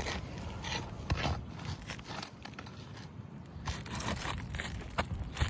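Brittle, sun-bonded asphalt roof shingles being pried apart and lifted from their seal strip. The sound is a run of irregular scrapes and crackles as the sealant tears loose, pulling mat from the shingle below.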